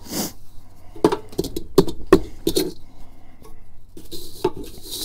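Light metal knocks, taps and scrapes, with a brushing hiss at the start and again near the end, as ash is cleaned out of the ash pan under a Char-Griller Akorn kamado grill.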